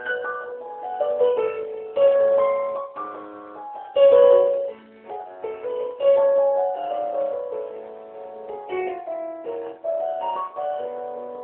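Electronic keyboard played by hand: a tango, a melody over chords, with strongly accented chords struck about every two seconds.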